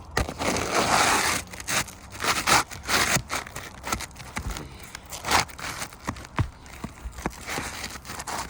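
Asphalt shingles brushed and scraped by hand: a long wiping swish at the start, then short scrapes, clicks and crackles as the shingle is handled and slid into place.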